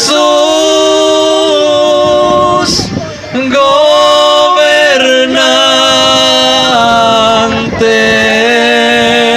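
Live band music amplified through loudspeakers: long held notes in harmony, with male voices singing, the chord changing every second or two with brief breaks between phrases.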